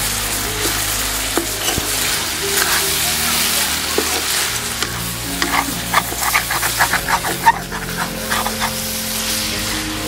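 Goat meat and intestines with greens sizzling in a wok while a metal ladle stirs and scrapes the pan. About halfway through comes a quick run of scrapes, several a second.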